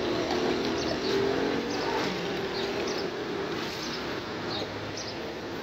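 Street ambience: a vehicle engine running, with birds chirping at short intervals.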